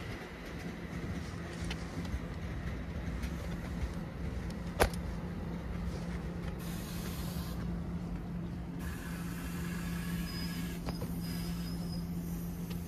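A vehicle engine running steadily with a low, even hum, and one sharp click about five seconds in.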